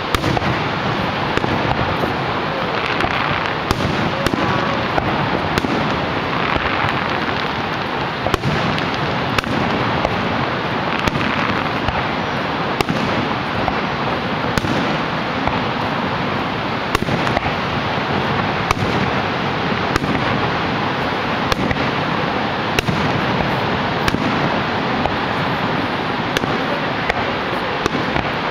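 Fireworks bursting overhead: many sharp bangs and cracks at irregular intervals, about one or two a second, over the steady rushing roar of Niagara Falls.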